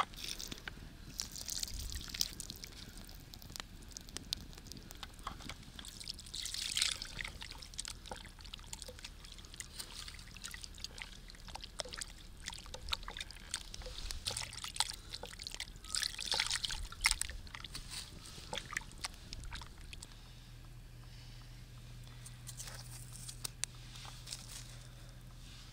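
Meat and onions frying in a pan, sizzling and crackling with scattered ticks; the sizzle swells a few times, about a second in, around 7 seconds and around 17 seconds.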